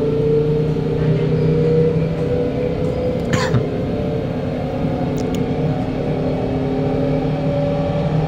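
Kawasaki Nippon Sharyo C751B train running between stations, heard inside the car: its traction motors give the steady robotic hum under the rumble of the wheels, with tones that drift slightly upward. A brief rising squeal sounds a little over three seconds in.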